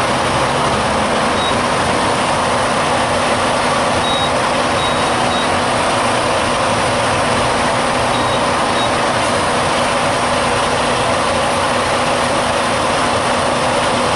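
Steady noise of a heavy truck's diesel engine running, with short high beeps now and then.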